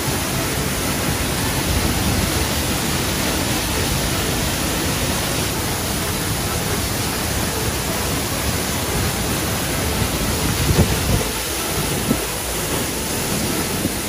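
Waterfall's water rushing in a steady, even hiss that fills the whole range from low to high.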